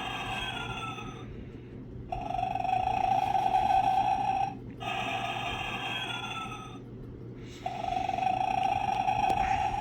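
Animated Sleeping Santa figure playing its recorded snore through a small, tinny speaker: a loud buzzing snore alternating with a softer whistling breath that falls in pitch, each lasting about two seconds with short pauses between, twice over.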